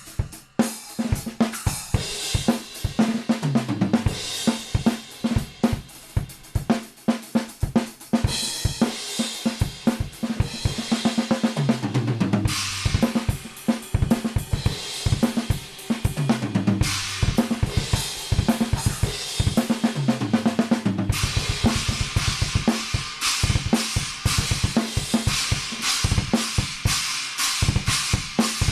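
Drum kit with Soultone cymbals played in a sound test: bass drum, snare and hi-hats in a groove under crash and ride cymbal wash, with several tom fills running down the toms. For the last several seconds the bass drum plays a fast continuous run under steady cymbals.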